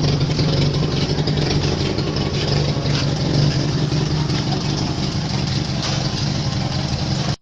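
The Toyota Corolla KE30's swapped-in 5K engine, a 1.5-litre four-cylinder pushrod engine, idling steadily.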